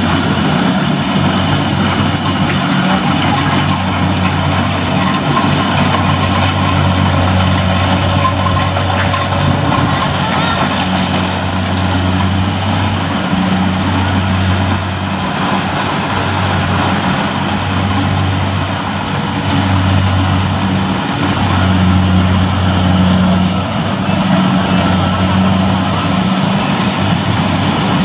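Kubota rice combine harvester's diesel engine running steadily under load as the machine cuts and threshes rice, its low drone dipping briefly a few times, with a dense rushing clatter of the harvesting mechanism over it.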